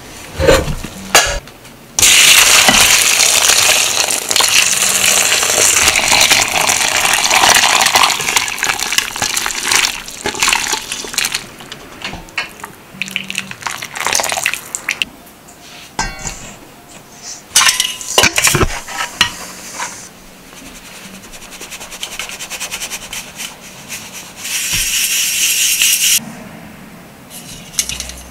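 Kitchen handling of a pot of whole-chicken broth: metal pot and utensil clinks and knocks, and a long rushing spell of several seconds that fits broth being poured and strained, with a shorter one later on.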